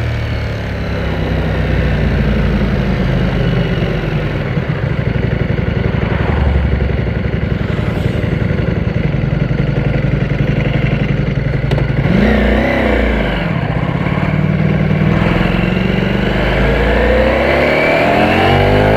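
Ducati Panigale V4S's V4 engine running under way, with a quick rise and fall in revs about twelve seconds in, then climbing steadily in pitch under acceleration near the end.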